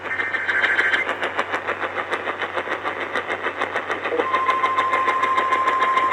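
AM radio reception of an Emergency Alert System flash flood warning, under steady pulsing static and a low hum. A warbling two-tone digital data burst ends about a second in, and about four seconds in a steady alert tone starts and holds.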